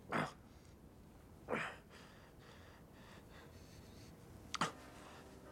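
A man taking three short, sharp breaths in distress through a cloth held to his bleeding nose. The first two come about a second and a half apart and the last near the end.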